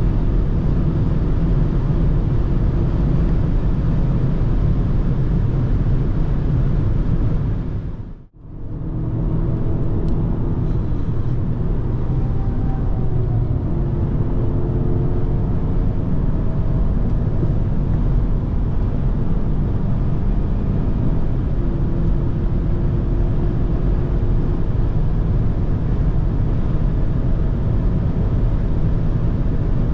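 Inside the cabin of a BMW X2 xDrive20i at Autobahn speed: steady heavy wind and tyre noise over the 2.0-litre turbocharged four-cylinder engine. About eight seconds in, the sound fades out to near silence and back within a second. After that, the engine note rises slowly as the car accelerates.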